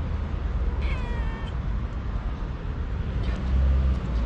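A young tabby kitten meows: one clear call about a second in, falling slightly in pitch, and a fainter call near the end. The cat is a hungry stray begging for food. A low rumble runs underneath.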